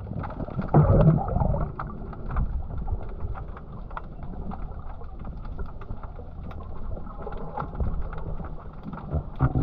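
Muffled underwater water noise picked up by a submerged camera: a low rumble with scattered clicks and crackles, swelling louder about a second in and again near the end.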